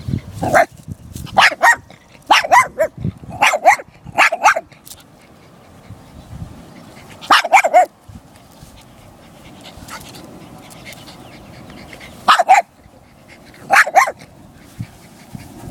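A puppy barking at a turtle: about ten short, sharp yapping barks, several in quick pairs, in a run over the first five seconds, again about seven seconds in, and twice more near the end.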